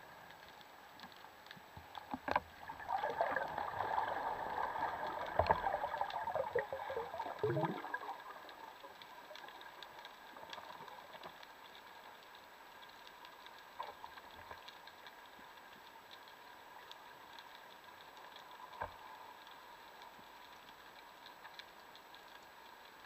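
Muffled underwater noise through a camera housing on a speargun: a gurgling, rushing burst for several seconds that fades with a falling sweep, then a faint steady hum broken by a few sharp clicks.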